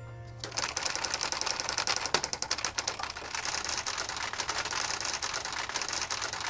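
Electric typewriter being typed on very fast, its keys clattering in a dense, continuous stream that starts about half a second in.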